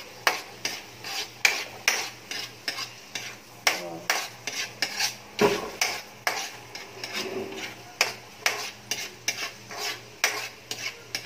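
Metal spatula scraping and knocking against a steel wok in quick strokes, about two to three a second, as onions and garlic are stirred in margarine, with a light sizzle of frying underneath.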